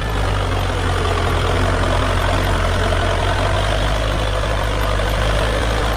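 Heavy engine idling steadily with a deep rumble, cutting in and out abruptly as an added engine sound effect.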